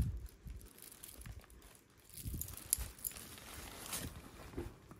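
Quiet handling sounds of a calfskin handbag and its leather-woven metal chain strap being moved: a few faint clicks and soft knocks among light rustling.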